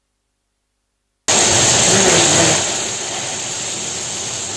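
Rain and wind on the microphone: a loud, steady hiss that cuts in abruptly after about a second of silence and eases a little about halfway through.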